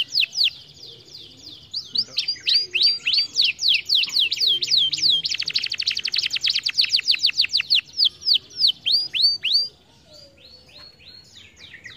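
Domestic canary singing: phrases of quick, repeated, downward-sweeping whistled notes, with a very fast trill in the middle of the song. The song breaks off briefly about half a second in and drops to a few faint notes near the end.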